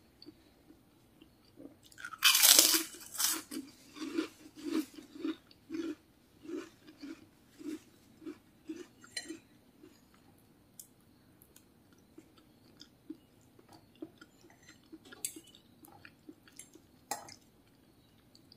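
A crisp cracker bitten into with a loud crunch about two seconds in, then chewed with a steady crunching rhythm of two to three bites a second that fades away; a few light clicks of cutlery near the end.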